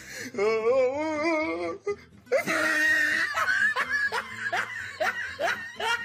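A person laughing: first a long, wavering laugh, then, after a short break about two seconds in, a run of short, breathy laughs.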